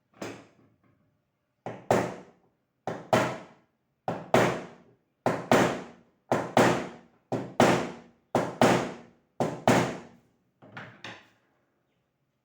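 A run of sharp knocks on something hard. After a single knock at the start come nine pairs of strikes, each pair a lighter blow followed by a heavier one, about one pair a second, fading out near the end.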